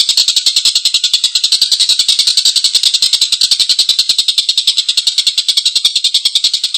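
Tengkek buto, a kingfisher, giving its long, harsh chattering call: a loud, unbroken rattle of very fast, evenly spaced sharp notes.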